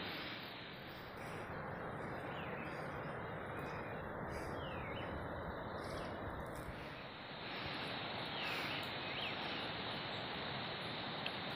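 Forest ambience: a steady even hiss with a few brief bird chirps scattered through it.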